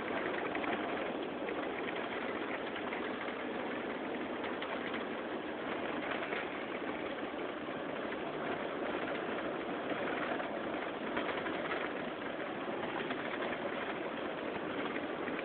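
Steady road and engine noise of a vehicle driving on snowy streets, heard from inside the cabin.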